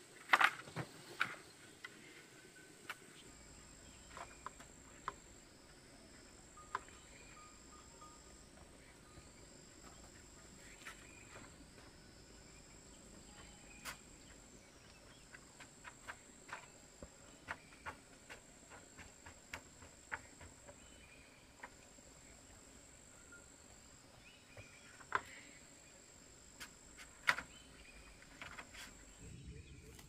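Scattered sharp knocks and clacks of bamboo poles and split-bamboo roof tiles being handled, the loudest about half a second in and twice near the end. Underneath is a steady high insect trill that breaks off briefly every couple of seconds.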